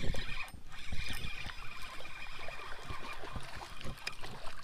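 Small knocks and bumps on a plastic sit-on-top kayak, with faint water against the hull, as a spinning rod and reel are handled.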